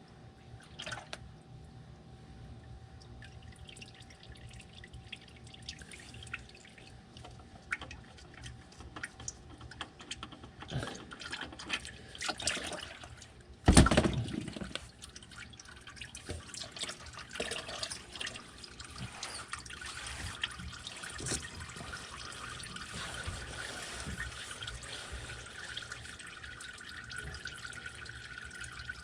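Used engine oil draining out of the oil pan and filter housing into a drain pan, trickling and dripping. A loud knock comes about fourteen seconds in.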